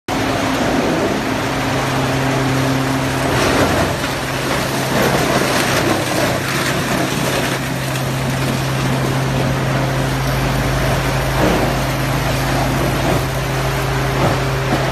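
Industrial wood hammer mill running with a steady low hum, with irregular clattering and crackling as wood scraps fed in by its belt conveyor are crushed, busiest in the first half.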